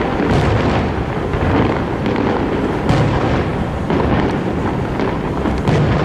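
Aerial fireworks bursting in rapid succession, their booms overlapping into a continuous rumble. Sharper reports stand out about half a second in, near three seconds, and near the end.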